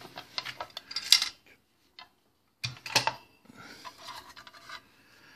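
Light metallic clicks and clinks of a Gambler Tube Cut cigarette machine's steel blade and linkage being handled as a new blade is fitted in. The loudest clinks come about a second in and again about three seconds in, with a short pause between.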